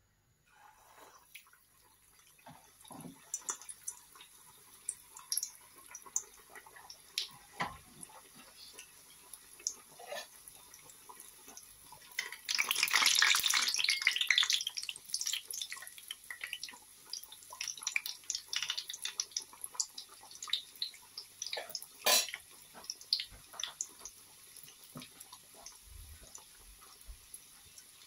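Vegetable pithas deep-frying in hot oil, with the oil crackling and popping. About twelve seconds in a loud burst of sizzling comes as the pithas go into the oil, then the crackling continues.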